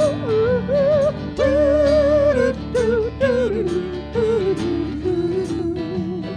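Live acoustic band playing an upbeat song: acoustic guitars and keyboard under a wavering lead melody line with no words.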